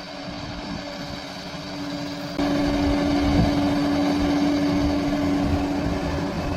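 Bulldozer's diesel engine running steadily with a constant hum. It grows gradually louder, then steps up suddenly about two and a half seconds in and stays loud.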